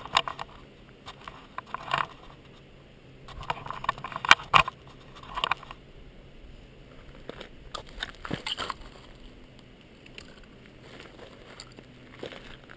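Scattered metallic clicks, rattles and scrapes of a Remington 870 pump shotgun being handled, with two sharp clacks close together about four and a half seconds in. No shot is fired.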